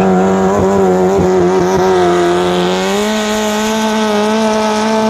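Longtail racing boat's engine running at high revs, a steady note whose pitch climbs a little about three seconds in and then holds.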